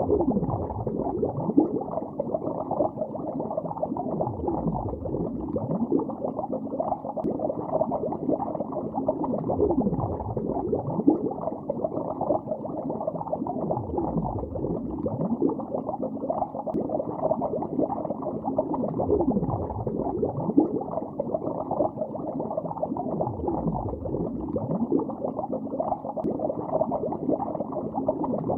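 Water bubbling, heard underwater: a dense, continuous stream of bubbles, muffled, with a low swell about every five seconds.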